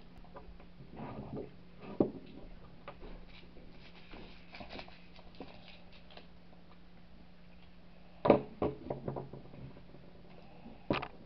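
Quiet handling of a foil-wrapped Kinder Surprise chocolate egg by a child's hands: faint rustling and a few light knocks, the loudest a short cluster about eight seconds in and another single knock near the end.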